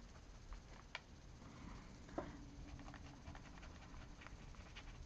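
Faint scattered taps and clicks of art markers being handled and worked on a paper journal page, with one sharper click about two seconds in.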